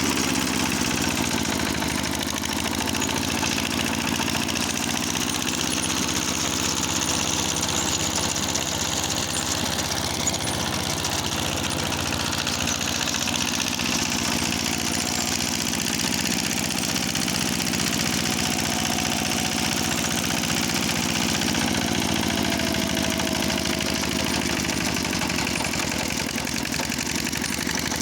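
Walk-behind tractor engine running steadily while driving its belt-driven milling cutter, its pitch dipping and recovering slightly near the start and again about two-thirds of the way through.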